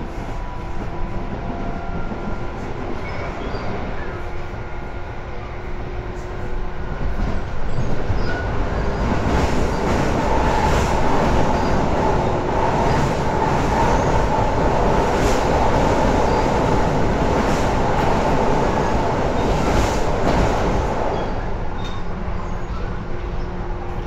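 Tobu 10030 series electric train running, heard from inside the car. The wheel and rail noise swells about eight seconds in, with a run of sharp clicks, then eases off again near the end.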